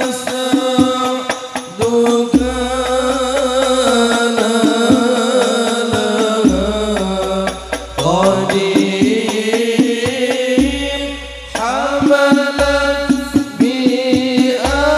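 Sholawat sung by a male voice in long, gliding melodic lines over a banjari hadroh ensemble of rebana frame drums beating a steady rhythm, with recurring deep bass tones.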